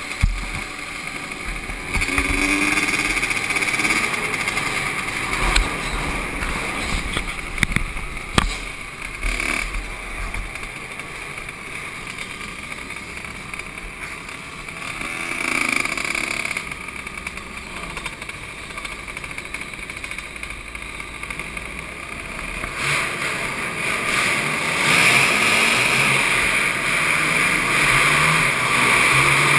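Small dirt bike engine heard from the rider's own bike, revving up and backing off as it races around a dirt track, quieter through the middle and building again near the end.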